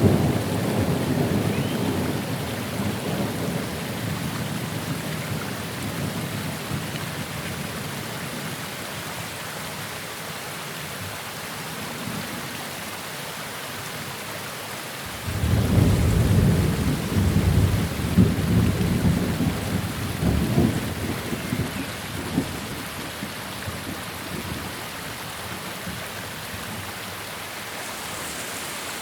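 Steady rain falling, with a roll of thunder dying away over the first few seconds. About halfway through a new thunderclap breaks suddenly and rumbles for several seconds before fading back under the rain.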